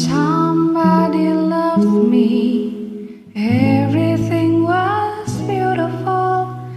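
A woman singing a slow ballad over a soft accompaniment, in two long phrases with a brief breath about a third of the way in.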